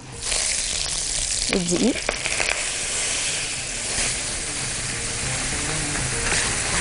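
Butter and oil sizzling in a hot nonstick pan as flour is added and whisked in to start a roux; the steady sizzle starts a moment in.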